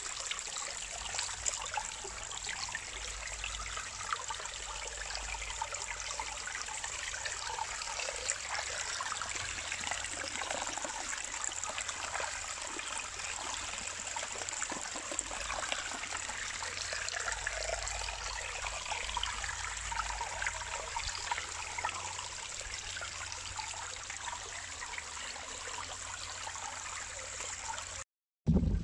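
Mountain spring water trickling and splashing in a thin sheet over rock, a steady, fine crackling flow. Right at the end the sound cuts out for a moment and a single loud thump follows.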